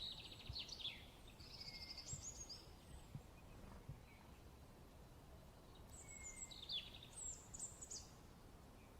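A songbird singing faint bursts of high chirps and trills, in the first couple of seconds and again near the end, with a pause of a few seconds between, over a low steady background noise.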